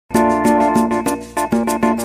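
Intro music: pitched notes over a steady beat, starting abruptly.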